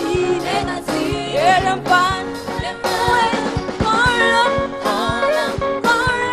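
Gospel singers performing live with band backing: several voices singing a melody over a steady drum beat and bass.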